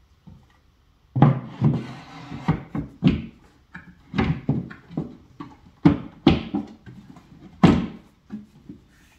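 Wooden cabinet shelves knocking and thudding as they are pressed and tapped down onto their metal shelf clips to seat them fully, an irregular run of sharp knocks starting about a second in.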